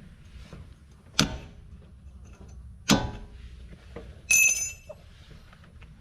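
Metal tool striking metal three times while a rust-seized ABS sensor is worked loose: two sharp knocks a couple of seconds apart, then a clang that rings like a bell for about half a second.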